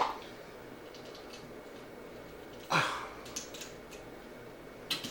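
Small handling noises from work on a wall outlet: a brief rustle a little over halfway through, then a few faint clicks and one sharper click near the end, over quiet room tone.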